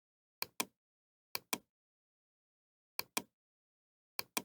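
Computer keyboard keys clicking in quick pairs, four pairs in all, with dead silence between.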